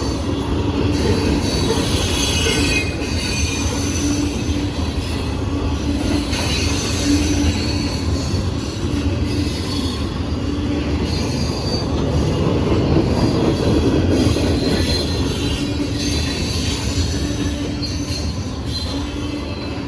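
Norfolk Southern freight train rolling past: a steady rumble of cars on the rails, with high wheel squeals coming and going throughout.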